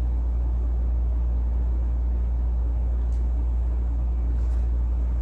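A steady low hum that runs unchanged throughout.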